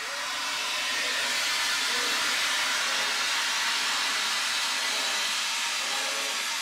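Carbon dioxide fire extinguisher discharging through its hose into a cloth bag: a steady, loud hiss of escaping gas that builds over the first second and then holds. The expanding CO2 freezes into dry-ice snow inside the bag.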